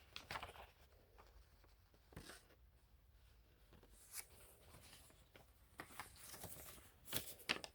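Near silence with a few faint, short rustles and clicks of something being handled, the loudest two near the end.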